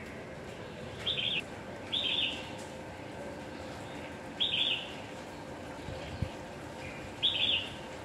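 A wild bird giving four short calls, spaced irregularly across a few seconds, over a steady background hiss. There is a brief low thump about six seconds in.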